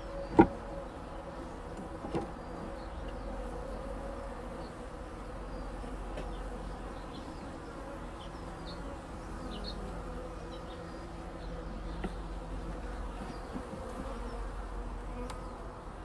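Honeybees buzzing in a steady drone around an open hive, with a sharp knock about half a second in and a softer one around two seconds in.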